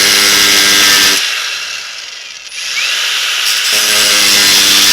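Power tool cutting a screwdriver slot into the head of a stripped 5 mm socket-head bolt: a steady motor whine under a high grinding hiss. It runs down about a second in, then starts again for a second cut near the end.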